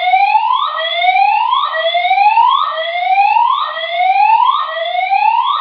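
Building fire alarm sounding its evacuation whoop: a loud tone that rises steadily, then drops back sharply, about once a second, repeating without a break. This is the alert signal of the hotel's voice evacuation system, ahead of a recorded evacuation announcement.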